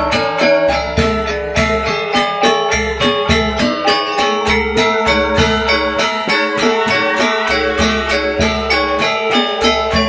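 Balinese gamelan ensemble playing: bronze metallophones ring out interlocking melody lines, bamboo suling flutes play over them, and the kendang hand drum beats low strokes. A fast, even pulse of bright metallic strokes runs throughout.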